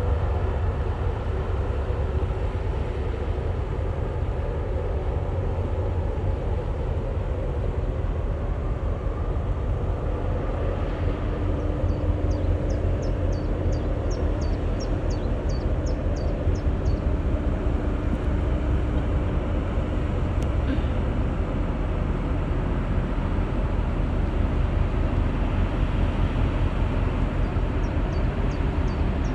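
Steady low engine rumble of a passing boat. A run of quick, high chirps, about three a second, comes twice.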